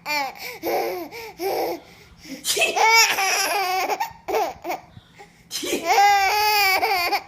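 Baby laughing hard in three bouts of quick, high-pitched, repeated laughs, with short pauses between them.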